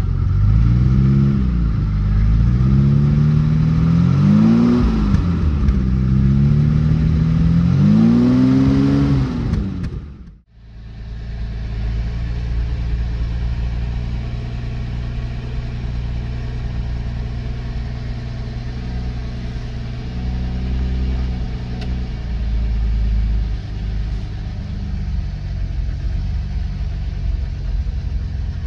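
Jaguar E-Type Series 3's 5.3-litre V12 engine, warming up after a cold start. For about ten seconds it is revved several times, the pitch rising and falling with each blip. The sound then cuts off abruptly and the engine is heard idling steadily from inside the cabin.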